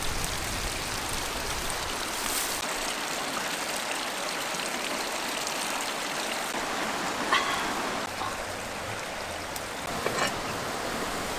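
Water flowing steadily in a stream or small waterfall, with a short pitched sound about seven seconds in.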